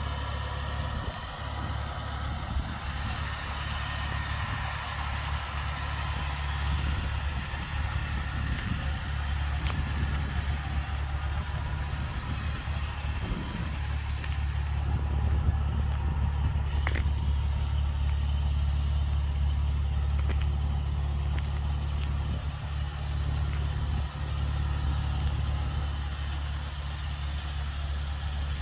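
The 2009 Toyota FJ Cruiser's 4.0-litre V6 idling steadily, with a constant low hum.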